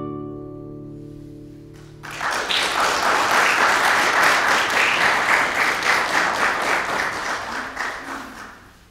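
The last chord of a classical guitar rings out and fades, then audience applause breaks out about two seconds in and dies away near the end.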